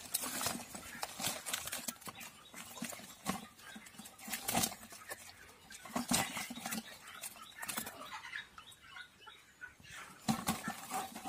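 Live climbing perch wriggling and flapping in a woven bamboo basket: irregular rustling and light taps of the fish against the cane.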